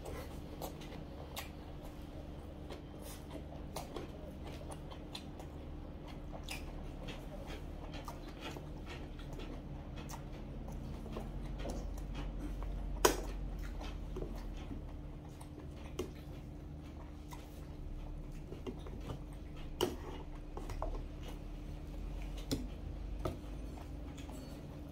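Close-up chewing and mouth sounds of a person eating, with scattered clicks of wooden chopsticks and a wooden spoon against stainless steel food containers; the sharpest clack comes about halfway through. A faint steady hum runs underneath.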